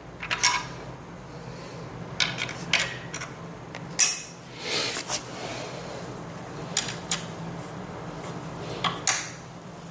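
Allen key clinking against a bolt head as the bolt is tightened by hand: scattered light metallic clicks over a faint steady hum.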